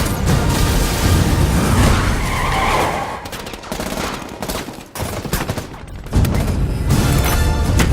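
Action film trailer sound effects: gunfire and car tyres skidding in a dense, loud mix. A quieter stretch of separate sharp cracks follows about three seconds in, and the full mix surges back about six seconds in.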